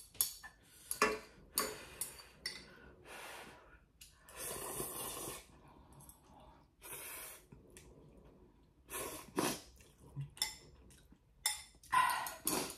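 A person slurping instant chicken ramen noodles from a bowl in several separate noisy slurps with short pauses, the longest about four seconds in.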